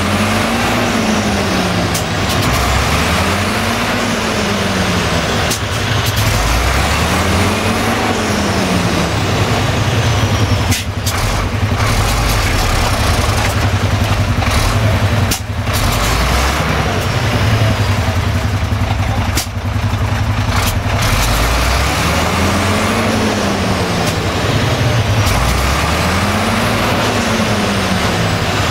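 Three-axle off-road truck's diesel engine labouring in deep mud, its revs rising and falling again and again about every two seconds as the bogged-down truck tries to pull free.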